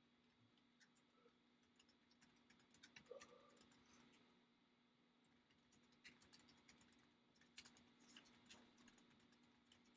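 Faint, scattered clicking of 3x3 speed cubes being turned by hand, in clusters, over a low steady hum.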